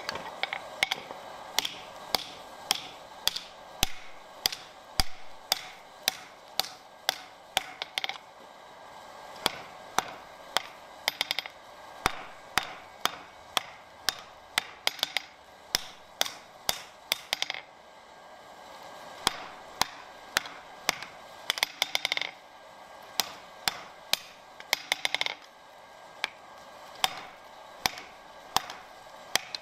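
Hand hammer striking red-hot steel on an anvil, forging the flat blade of an ice spud bar: ringing blows at about two a second, in runs of several seconds broken by short pauses.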